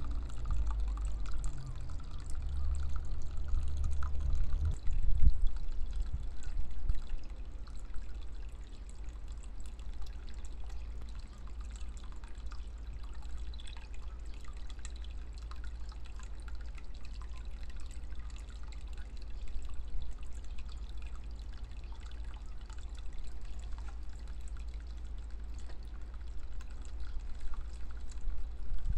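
Water trickling and splashing steadily from a bamboo spout into a small pond. A low rumble sits under it, heavier and more uneven during the first five seconds.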